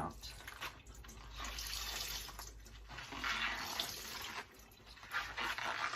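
Water splashing and sloshing in uneven bursts as laundry is worked and squeezed by hand in rinse water.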